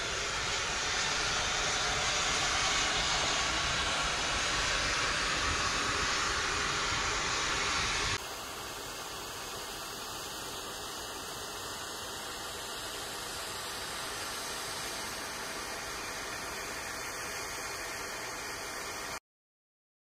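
Volcanic fumaroles venting steam with a steady hiss. About eight seconds in it cuts to a quieter hiss, which stops abruptly near the end.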